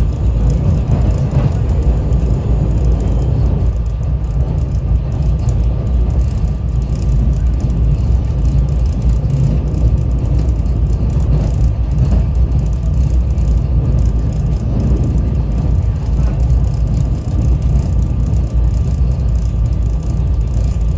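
Steady rumble of a SEPTA Regional Rail train's wheels and running gear at speed, heard from inside the passenger car, with a faint steady whine above it.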